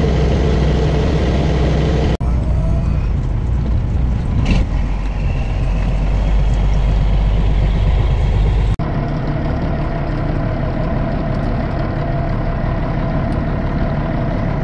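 A fishing boat's engine running steadily with a low rumble. The sound is cut together from a few clips, so its character changes abruptly about two seconds in and again near nine seconds.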